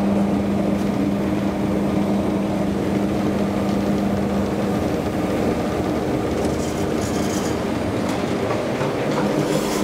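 Traction elevator car travelling in a deep shaft: a steady rumble with a low hum that stops about halfway through.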